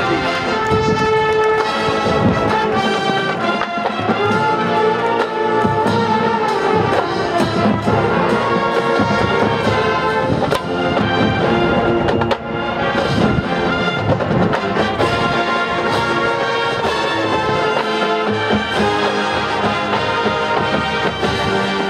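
College marching band playing live on the field: brass section holding and moving through sustained chords over a steady beat of drum hits.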